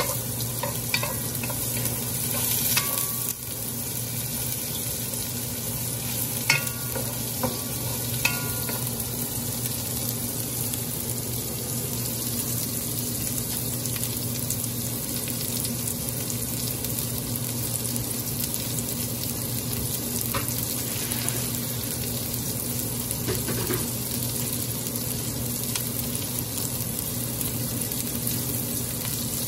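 Sliced onions and garlic sizzling steadily in hot oil in a large metal pot. A wooden spoon stirs and knocks against the pot a few times in the first several seconds, then only the sizzle goes on.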